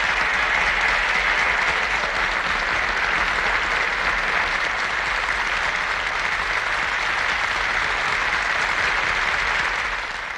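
Studio audience applauding after a song, a steady even clapping that fades out near the end.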